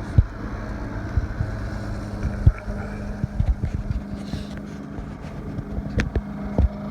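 Steady hum of a Yamaha 2000 quiet generator running in eco mode while it powers a 5,000 BTU window air conditioner, with several short low thumps scattered through it.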